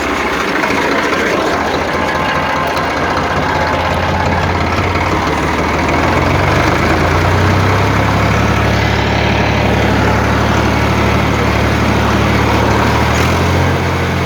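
An engine running steadily at idle with a low, even hum that gets a little louder about six seconds in.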